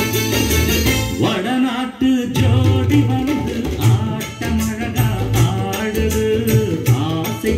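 Background music: a song with a singer over instrumental backing, the singing coming in about a second in.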